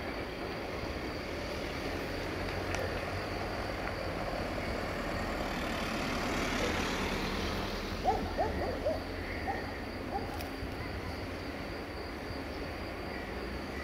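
A bird giving a quick run of short hooting calls about eight seconds in, the loudest sound here, over a steady background of wind-like hiss and a low rumble.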